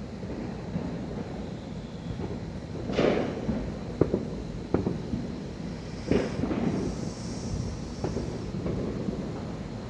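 Fireworks going off at a distance: a boom about three seconds in, two sharper bangs soon after, then another boom about six seconds in, each trailing off in a rumbling echo over a steady low rumble.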